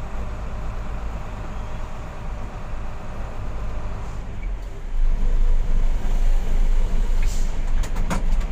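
Diesel engine of a Mitsubishi Fuso 220 PS truck running while the truck moves slowly, heard inside the cab, with a steady low rumble that gets louder about five seconds in. A few sharp clicks come near the end.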